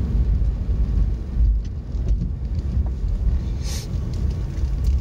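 Car cabin noise while driving slowly: a steady low rumble of engine and tyres, with a short hiss about three-quarters of the way through.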